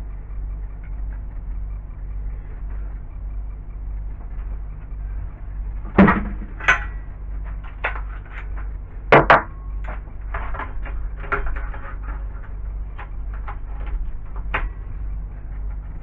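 Tools and metal parts being handled on a metal workbench: two pairs of sharp knocks about six and nine seconds in, then lighter clicks and taps, over a steady low hum.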